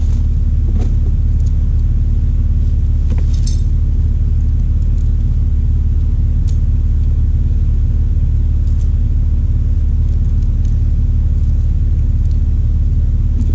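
Jeep Wrangler TJ's 4.0 inline-six idling steadily, with a few light clinks of a steel tow chain being fastened around a log.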